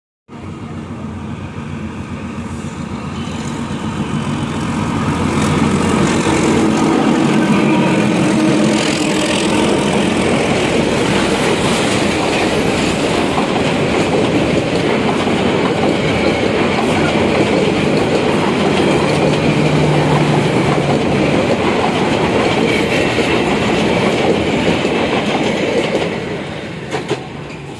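Local passenger train passing close by. The coaches' wheels rumble and clatter over the rails, building over the first five seconds and holding steady, then dropping away near the end as the train goes by.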